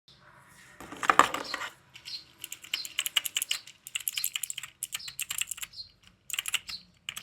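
3D-printed plastic round clickers being pressed repeatedly, giving quick runs of sharp plastic clicks with short pauses between them, after a louder rustling handling noise about a second in.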